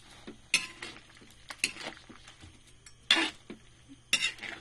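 Spatula scraping and clattering against a wok while stir-frying, four strokes about a second apart, with a light sizzle from the pan underneath.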